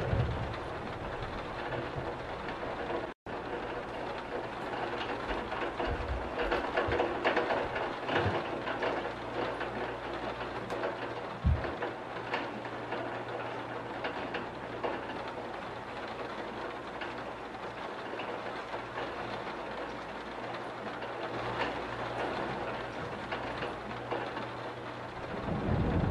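Steady rain falling, an even hiss of drops. A low rumble of thunder fades out at the start and swells again near the end, and the sound cuts out for a split second about three seconds in.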